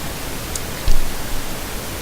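Steady hiss of background noise, with a short low thump about a second in.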